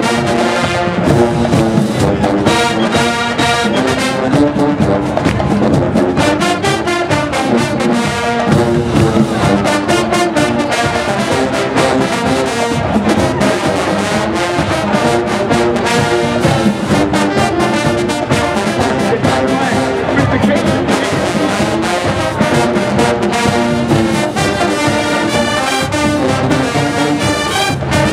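Marching band playing, the brass section (trombones and trumpets) carrying the tune over a steady beat.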